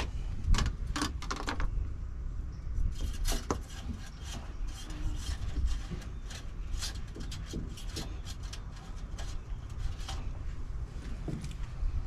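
Irregular light clicks, knocks and rubbing of parts and tools being handled, over a low steady rumble.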